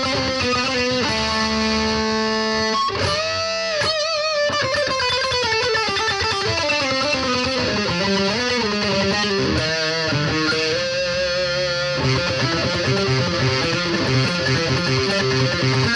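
BC Rich Virgin VG1 electric guitar played through the distortion channel of a Roland Cube Lite practice amp. It plays single-note lead lines, with held notes, string bends and vibrato.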